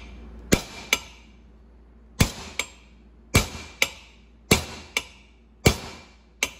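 Hammer tapping a new pump bushing into an E4OD/4R100 transmission pump body, driving it in nice and easy to keep it straight. Ten sharp metallic strikes fall in pairs, about one pair a second, each with a brief ring.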